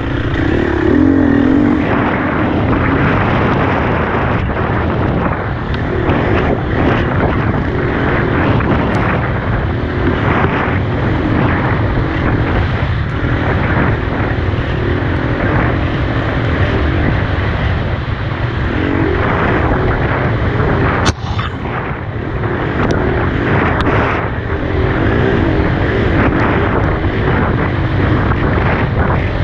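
Dirt bike engine running steadily while being ridden, its pitch wavering up and down with the throttle. A single sharp knock about 21 seconds in.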